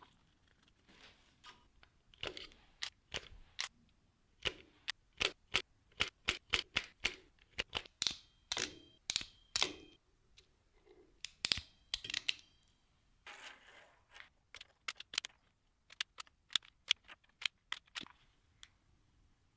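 Hands working cable and a plastic cable gland: irregular sharp clicks, snaps and short scrapes, in a busy run from about two seconds in to about ten seconds, then more sparsely with a few quick clusters.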